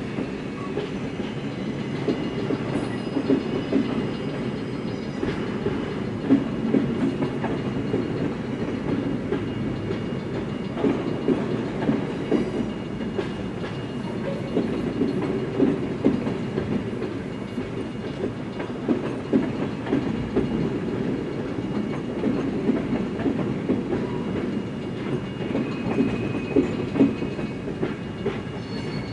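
Freight train of tank cars rolling past, a steady low rumble with the clickety-clack of steel wheels over rail joints.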